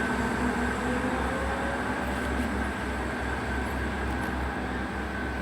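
Two coupled class 158 diesel multiple units running as they pull out of the station: a steady diesel drone and rumble, with a faint whine rising in pitch over the first couple of seconds.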